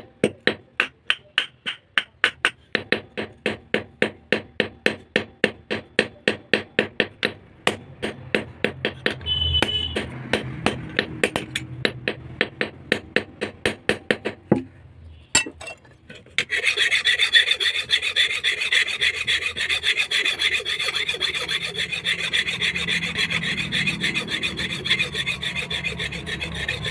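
Rapid hammer blows on steel, about three a second with short ringing after each, during repair of a basula (carpenter's adze); they stop about fifteen seconds in. From about sixteen seconds in, a steady harsh rasping of the steel being filed or ground.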